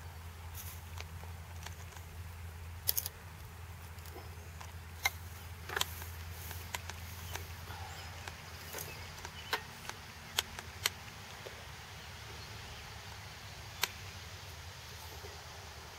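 A dozen or so scattered light clicks and taps from hands working the honeycomb onto a wooden top bar, over a steady low hum.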